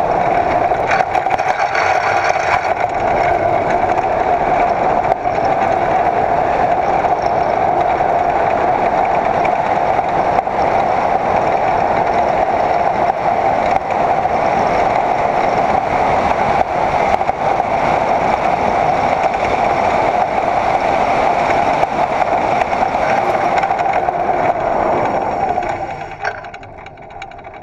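Unpowered soapbox car rolling fast down an asphalt course: a steady loud rumble and hum from its wheels on the road, dropping off sharply about two seconds before the end as the car slows.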